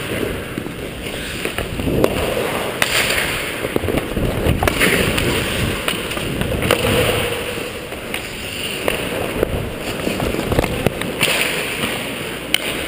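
Ice hockey play heard from a helmet-mounted action camera: skate blades scraping the ice in short hissing surges, sharp clacks of sticks and puck, and a steady low rumble of movement on the microphone.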